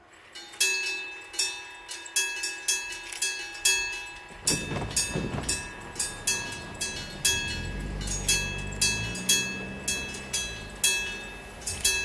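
An AC-powered electric gong bell at a Japanese railway level crossing starts up about half a second in and strikes over and over, roughly two strokes a second, each stroke ringing on. A low rumble comes up about halfway through, and low hums climb in pitch a little later.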